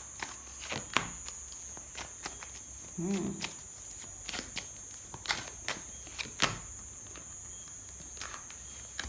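Tarot cards being handled on a table: irregular light clicks, taps and slides of the cards, with a short murmured "hmm" about three seconds in and a faint steady high whine.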